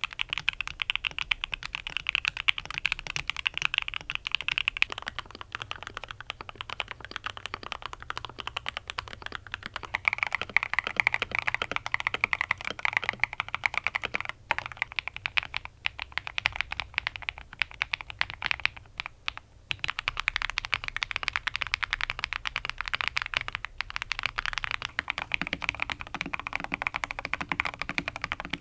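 Fast, continuous typing on mechanical keyboards, dense rapid key clacks; the character of the clacking changes every several seconds with brief pauses, as one custom or modded board gives way to the next.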